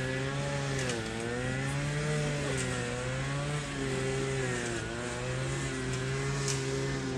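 An engine drone, steady in level, its pitch sagging and rising slowly every second or two.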